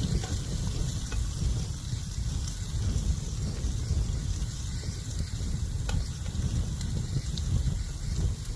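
Mushroom stir fry sizzling in a shallow frying pan, a steady hiss with a few faint clicks, under a strong low rumble of wind buffeting the microphone.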